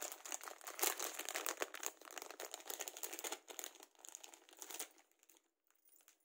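Thin clear plastic jewellery pouch crinkling as hands handle and open it. There is a dense crackle for about five seconds, which then thins out and fades near the end.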